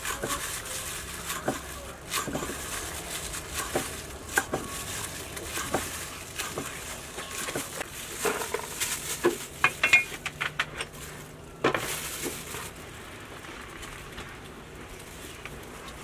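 Cleaver knocking on a thick wooden chopping block while chopping green onions, then irregular knocks and clinks of food being handled in a bowl. The knocks are loudest and most frequent just past the middle, and the last few seconds are quieter.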